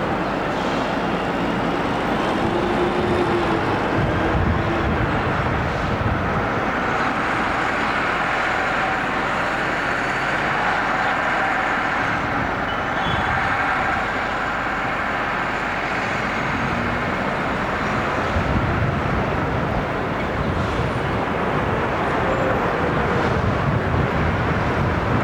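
Steady running noise of vehicles, without a break.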